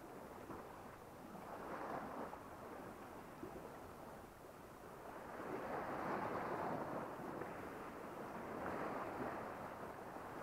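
Sea waves washing against the shore, rising and falling in slow swells about three times.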